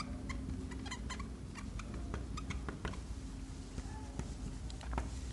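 Dry-erase marker squeaking on a whiteboard as a word is written, in many short high-pitched strokes, over a faint steady hum.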